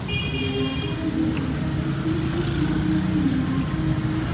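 Street traffic with motor engines running steadily, a brief high beep in the first second, and a wavering tone running through the rest.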